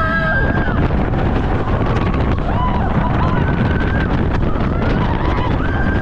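Mack Rides roller coaster train running through its inversions, the wheels rumbling on the steel track under heavy wind rush over the microphone, with riders screaming near the start, in the middle and again near the end.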